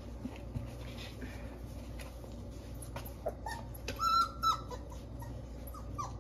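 Four-week-old puppies whimpering softly, with one short high whine about four seconds in, amid small scratches and shuffles in a cardboard box.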